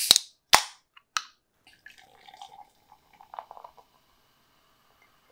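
A Coca-Cola can's ring-pull snapping open with a sharp crack and a short hiss of escaping gas, followed by two more sharp clicks within the next second. Then cola is poured into a glass, fizzing and foaming for about two seconds.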